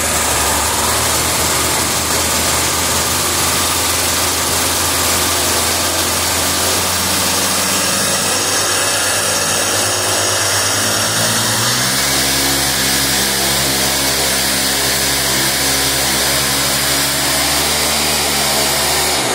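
EVO 100cc paramotor engine running on the ground, steady at a lower speed, then stepping up to a higher speed about twelve seconds in and holding there until it stops near the end.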